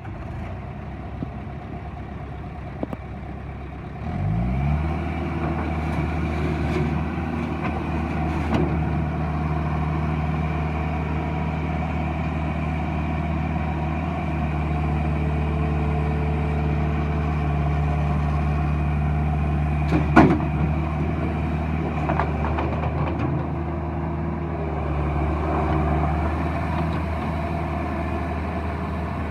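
Bobcat 873G skid steer loader's diesel engine rising in speed about four seconds in, then running steadily. A sharp clank sounds about twenty seconds in.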